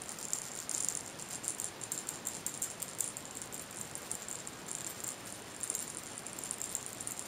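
A small cat toy rattle shaken by hand in short, irregular bursts of quick, light, high-pitched clicking.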